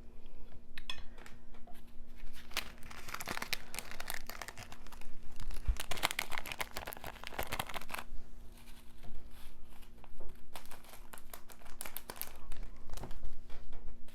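Packaging being crinkled and torn close to the microphone, in bursts of sharp crackling that come and go several times.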